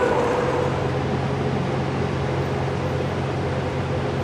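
A large diesel engine idling: a steady low hum under an even hiss that sets in about half a second in and holds without change.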